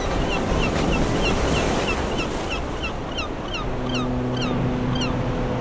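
Sea waves washing in a steady rush, over a rapid run of short, high, falling chirps at about four a second. A low steady hum comes in a little past halfway.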